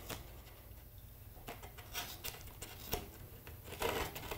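Faint scratching and scraping of a small metal tool digging into a foam deer mannikin, divoting out the back of the eye socket. There are a few light, scattered strokes that come more often near the end.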